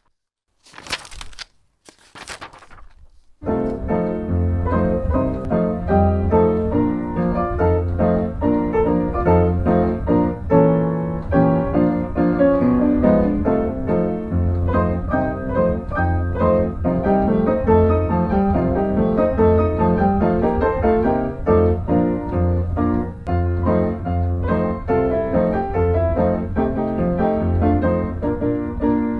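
Two brief noises, then piano music with a repeating low bass note that starts about three and a half seconds in and continues.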